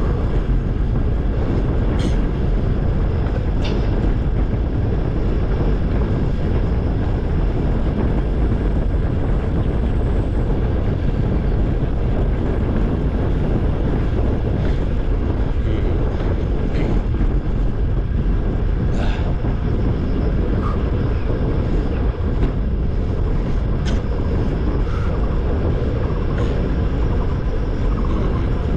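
Steady rushing noise of riding a bicycle on the road, chiefly wind on the microphone with tyre noise beneath, and a few sharp clicks or rattles now and then.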